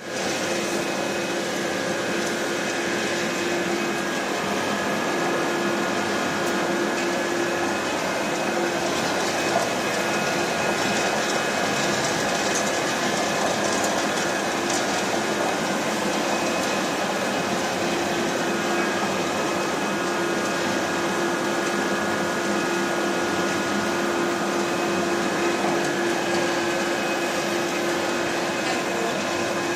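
Wood sawdust pellet mill running steadily: dense machine noise with a constant hum and a higher whine held throughout.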